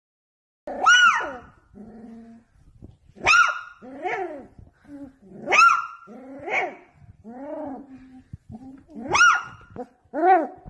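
Beagle puppy howling in short, high calls that rise and fall in pitch: about five loud ones, with softer, lower calls in between.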